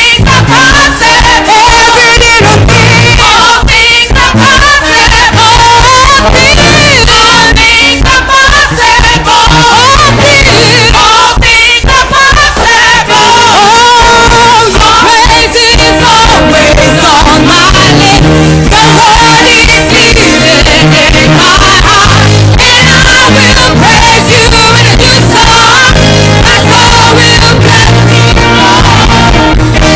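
Live gospel worship song: a woman leads on a microphone while the congregation sings along over loud, steady instrumental backing with a beat.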